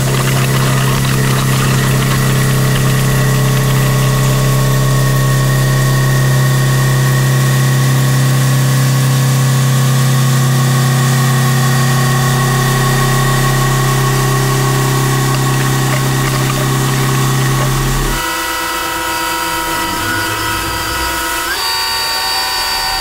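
A 1-1/4 inch Kennametal HARVI I TE end mill cutting 4140 steel on a 100 HP Ibarmia CNC machine: a loud, steady, deep hum with higher tones above it. About 18 seconds in the deep hum stops, leaving a set of higher, steadier machine tones.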